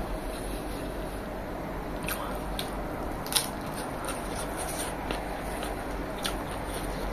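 Close-up eating sounds: chewing and wet squishing as rice and curry are mixed and eaten by hand, with scattered small clicks and smacks, one sharper click about halfway through.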